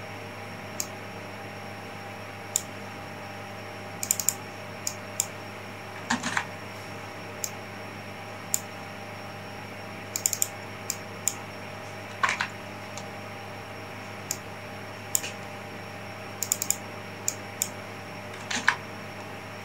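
Irregular clicks of a computer mouse and keyboard, about one a second, some in quick pairs or clusters, over a low steady electrical hum.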